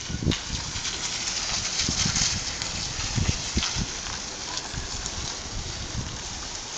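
Small Fiat hatchback driving slowly over a cobblestone street toward the microphone, its tyres making a steady noisy rumble with irregular low bumps, a little louder about two seconds in.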